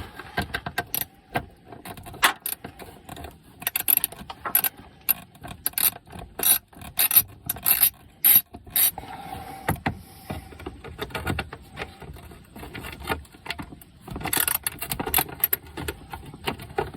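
Hand ratchet clicking in quick runs as it backs out the 7mm screws that hold a turn signal assembly, with pauses between runs.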